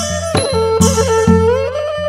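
Kantrum folk ensemble playing an instrumental passage: a fiddle carries a gliding melody over regular drum beats and bright metallic strikes.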